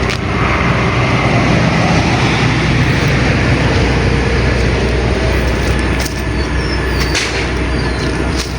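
Steady low rumble of heavy engines and motor traffic, with a few short sharp snaps, about six, seven and eight seconds in.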